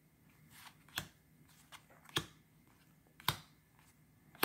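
Magic: The Gathering trading cards being flipped through one at a time, each card snapping against the stack. The result is four sharp clicks about a second apart, with fainter ones in between.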